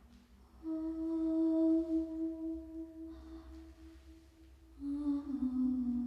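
A voice humming two long held notes, the first starting just under a second in, the second coming in near the end and stepping slightly lower.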